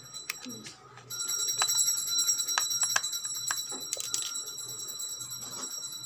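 Screwdriver clicking and scraping at the screws of an electric kettle's plastic base, with many short irregular clicks. A steady high-pitched ringing tone starts about a second in and continues underneath.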